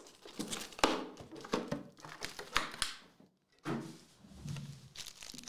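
Plastic packaging on a trading-card box crinkling as it is handled and opened, with a series of sharp clicks and knocks.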